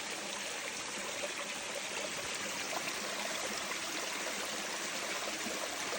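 Steady rush of running water from a flowing stream.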